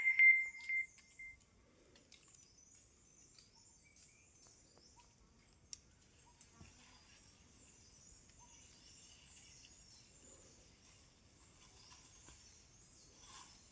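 A loud ringing tone fades out in the first second, then faint, scattered high-pitched chirping in the background.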